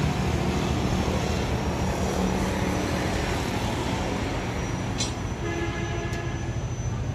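Kubota L3001 tractor's diesel engine idling steadily, with a sharp click about five seconds in.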